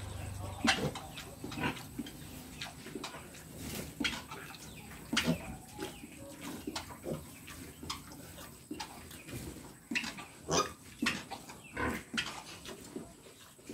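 A sow and her newborn piglets making short, irregular calls.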